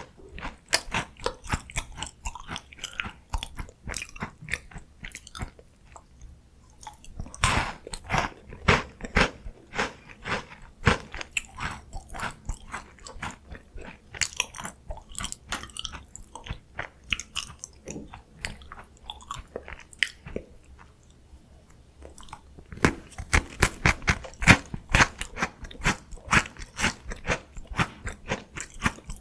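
Close-miked biting, crunching and chewing of crisp chocolate K-snacks (Home Run Ball puffs and Choco Songyi biscuits). There are bursts of loud crunches about a quarter of the way in and again through the last part, with softer chewing between.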